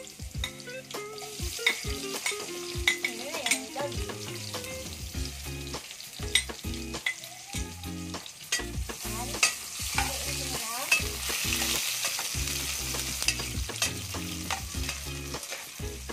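Chopped tomato and onion sizzling in hot oil in an aluminium pot as they are sautéed, with a metal spoon repeatedly clinking and scraping against the plate and the pot. The sizzle grows louder in the second half.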